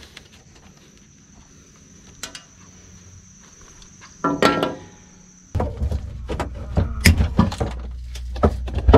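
Handling noises during the repair: a few faint clicks and a brief scrape, then from about halfway a steady low rumble with frequent knocks and clicks.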